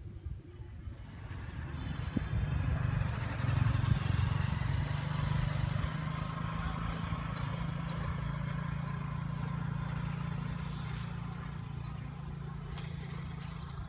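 A motor vehicle's engine running steadily with a low hum. It swells over the first few seconds, then holds.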